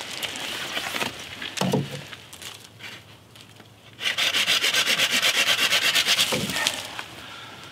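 Hand saw cutting through a freshly cut wooden stick: a quick, even run of rasping strokes that starts about halfway in and lasts about three seconds, after lighter handling sounds of the stick.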